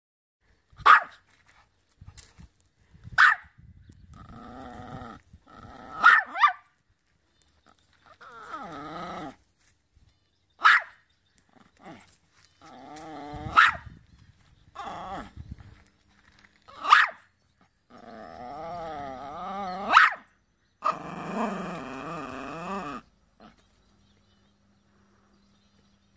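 A small poodle-type dog barking: about eight short, sharp barks spaced a few seconds apart, with longer wavering growls in between. The vocalising stops near the end.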